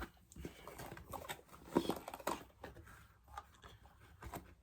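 Fidget toys being rummaged through and handled: irregular light clicks, taps and rustles of small plastic and squishy toys being picked up and moved about.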